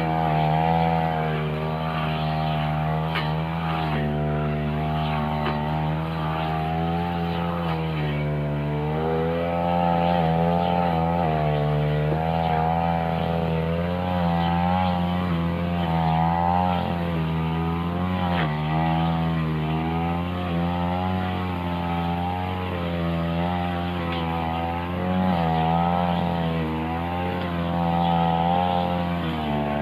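Backpack two-stroke brush cutter running at high throttle while cutting grass with a metal blade. The engine note wavers up and down again and again as the blade swings side to side and bites into the grass.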